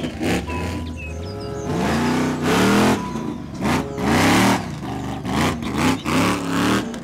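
Son-uva Digger monster truck's supercharged V8 revving hard in several repeated surges, each one climbing and falling back in pitch.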